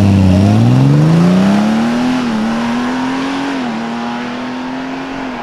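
Honda Gold Wing's flat-six engine pulling away under acceleration, its pitch climbing, with two quick upshifts, a little after two seconds and again near four seconds in. It then runs at a steady pitch and fades as the bike rides off.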